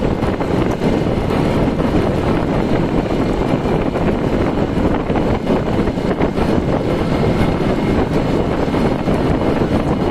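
Steady wind buffeting on the microphone of a moving motorcycle, mixed with the bike's engine and road noise at cruising speed.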